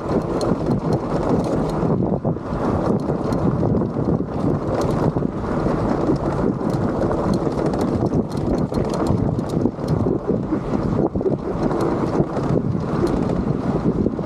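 Wind buffeting the microphone while a mountain bike's tyres rumble over a rocky trail, with frequent small clicks and rattles from rocks and the bike.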